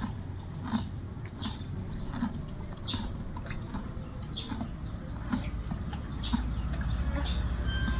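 Horse eating from a trough, munching its feed in short crisp crunches about every three-quarters of a second. A low steady rumble builds in over the last two seconds.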